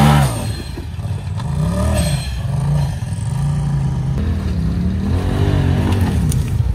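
Polaris side-by-side engines revving up and down several times under load as they pull up a muddy, rutted climb.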